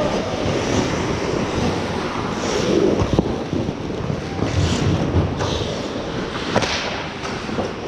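Ice hockey game sounds at the rink: a steady rush of noise with intermittent high scrapes and a few sharp clacks of sticks and puck.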